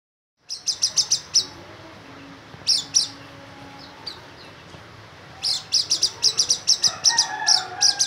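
A caged white-eye (pleci) singing in quick bursts of sharp, high chirping notes: a rapid burst about half a second in, a short one near three seconds, then a long fast run from about five and a half seconds on.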